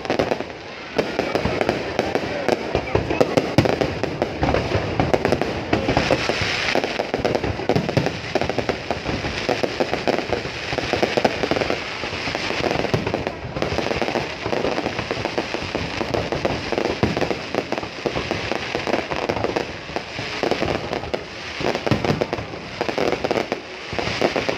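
Fireworks going off in a dense barrage, bursts and crackles overlapping continuously with no pause.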